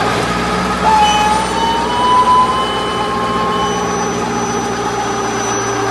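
Straw and husk baler machine running steadily with a low machine hum, with a thin whine that rises slowly in pitch from about a second in and fades out after about three seconds.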